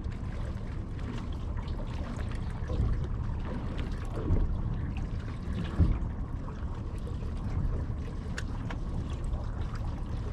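Water sloshing and lapping against the hull of a small fishing boat over a low steady rumble, with a few faint clicks.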